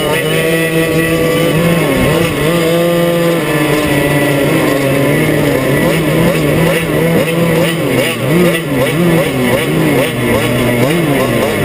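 Two-stroke racing kart engine running hard, its pitch holding fairly steady for the first several seconds, then dipping and rising quickly again and again in the second half as the throttle is worked through the turn.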